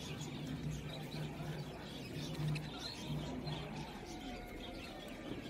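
Birds chirping faintly in the background, over a low on-and-off hum.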